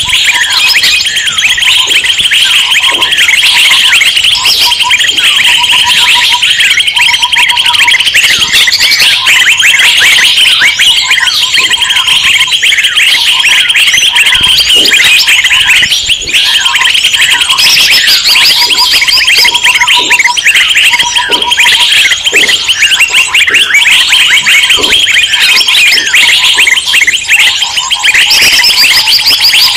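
Dense, loud chorus of many small songbirds chattering and chirping at once, with a short low whistled note repeated in rows beneath it. This is the noisy, agitated bird commotion played as a lure to draw in wild birds.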